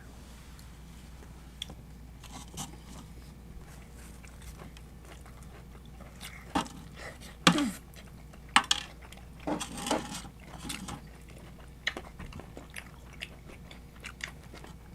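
Close-miked eating: a person biting and chewing Domino's pineapple-and-jalapeño specialty chicken, with wet mouth sounds and irregular crunchy clicks. The loudest bites and smacks come a little past the middle.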